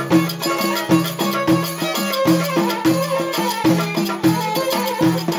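Moroccan Jbala folk music (aita jabalia) with a steady beat of two to three strikes a second under a melody.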